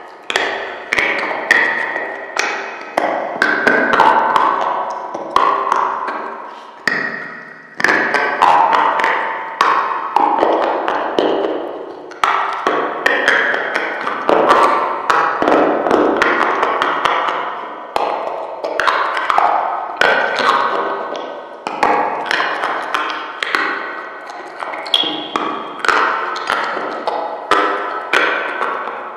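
Hard white chalky blocks being bitten and chewed up close: a dense run of crisp snaps and crunches, several a second, each with a short ringing click, with brief pauses between bites.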